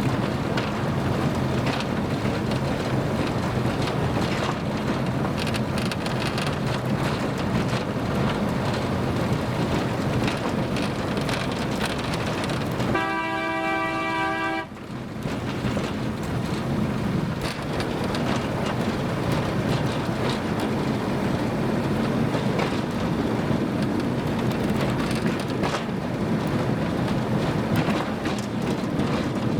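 Small forest railway train running, with a continuous rumble and clatter. About halfway through, the train's horn gives one short blast.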